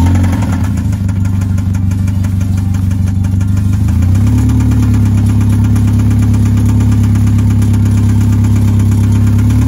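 Mazda Miata four-cylinder engine running loudly and steadily with a rapid knocking beneath its note, picking up revs slightly about four seconds in; the knock is the sign of a badly worn connecting-rod bearing, a failing engine.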